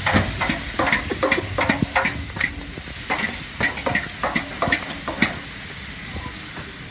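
Glaze being brushed and dabbed onto sizzling jerk chicken: irregular wet taps, about three a second, stopping a little after five seconds in, over a steady frying hiss.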